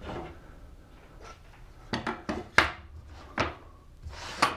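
Sled parts being handled and set down on a table saw top: an aluminum guide bar and panel knocking and clacking against the table and each other, about five short sharp knocks with light sliding between them.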